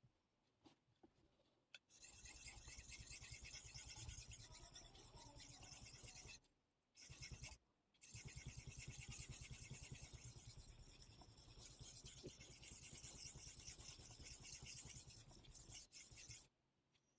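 Miyabi gyuto blade being sharpened freehand on a Suehiro Debado whetstone: rapid back-and-forth strokes of steel rubbing across the wet stone. It starts about two seconds in, pauses briefly about halfway through, and stops near the end.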